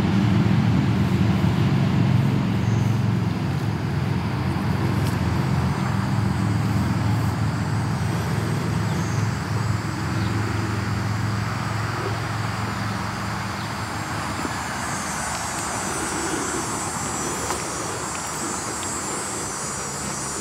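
Wolf growling, a deep, rasping, continuous rumble that eases off after about fourteen seconds: a warning growl in a dispute with another wolf.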